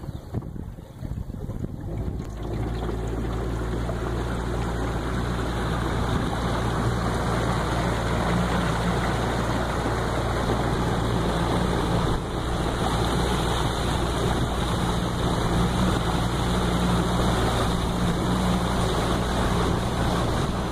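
Motorboat engine running steadily with water rushing along the hull. The engine noise rises about two seconds in and then holds an even pitch.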